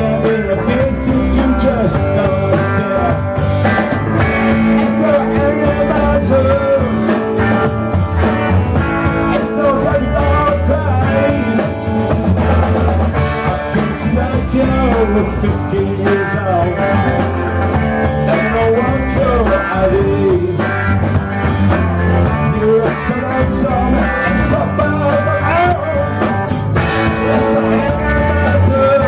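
Live rock band playing a blues-rock number: electric guitar, drum kit and keyboards.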